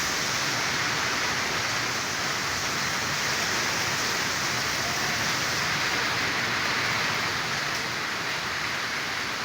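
Heavy rain falling, a steady even hiss of rain hitting surfaces.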